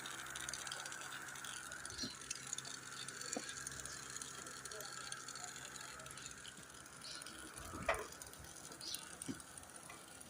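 Faint, scattered clicks and knocks of hand tools working on an engine, with one sharper click about eight seconds in, over a steady low hum.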